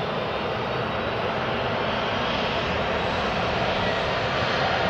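Boeing 737-400's CFM56 turbofan engines running as the airliner rolls along the runway: a steady jet noise that slowly grows louder.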